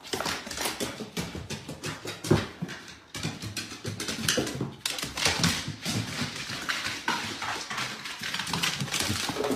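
A dog's claws and paws clattering down wooden stairs and across a hardwood floor: a fast, uneven run of clicks and taps, with one louder thud about two seconds in.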